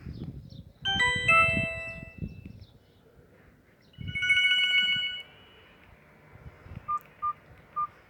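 Alcatel OT-2012D mobile phone playing short ringtones through its small speaker. First comes a brief melody of chiming notes about a second in, then a rapid trilling run of notes around four seconds in. Near the end there are a few short beeps.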